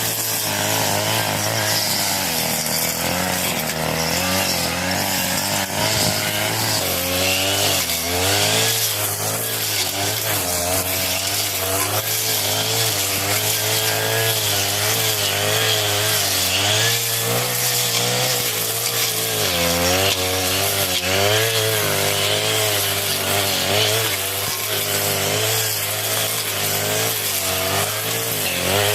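A 40cc two-stroke brush cutter running at high revs with its 40 cm blade cutting through thick grass. The engine note keeps dipping and recovering as the load changes.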